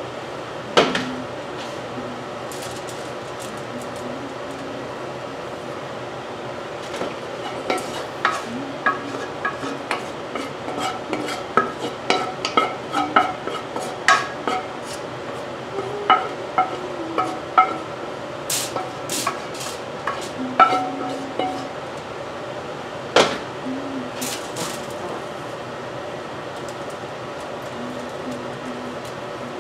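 Wooden spoon stirring vegetable filling in a stone-coated wok: a run of sharp knocks and scrapes against the pan, some ringing briefly, busiest through the middle, over a steady low background.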